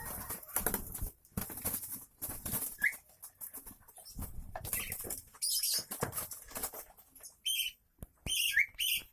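Caged birds flapping their wings in repeated bursts of fluttering, with a few short, sharp chirps, mostly near the end.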